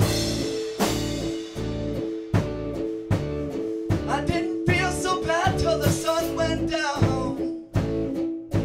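Rock-blues song with drum kit and guitar playing a steady beat; a wavering lead melody comes in about four seconds in and fades near the end.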